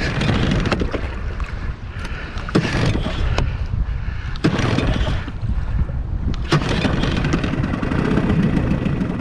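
Yamaha outboard motor being pull-started several times, in short bursts, without catching; the engine is flooded.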